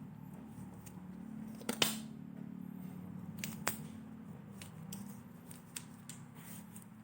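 Packaging of a keyboard and mouse bundle being handled and opened: scattered sharp clicks and crinkles, the loudest about two seconds in and another near four seconds, over a steady low hum.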